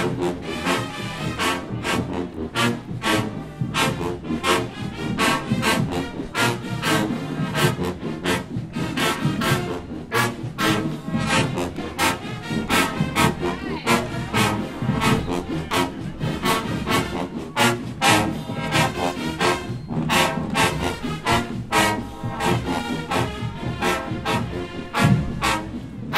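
Marching band brass, trombones and trumpets, playing loudly over a steady drum beat.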